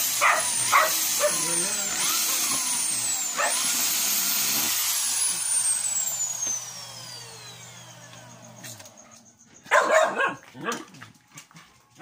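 Corded electric drill run in short trigger bursts while drilling rivet holes through a refrigerator door's metal edge. Each time its whine jumps up and then sags, and after about four seconds it coasts down in one long falling whine to a stop. A dog barks several times, loudest about ten seconds in.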